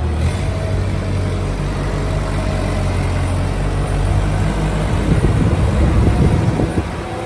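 Bull Smart Kid backhoe loader's diesel engine running, turning louder and rougher for a stretch about five seconds in.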